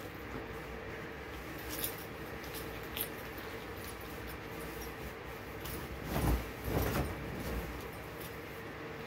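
A cotton bed sheet rustling and swishing as it is pulled across and shaken out over a mattress, loudest in two swishes about six to seven seconds in, with keys jangling lightly. A faint steady hum runs underneath.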